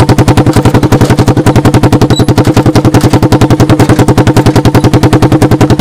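Single-cylinder four-stroke engine from a 1986 Honda TRX200SX ATV, fitted to a converted golf-cart UTV, idling steadily and loud close up. It gives a fast, even putt-putt of exhaust pulses through a makeshift muffler.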